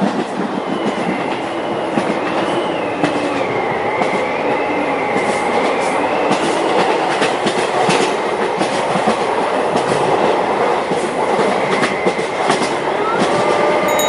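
Train sound effect for a monster train: a steady rolling rumble and rattle with many short clicks, and a faint wavering high whine over it in the first few seconds.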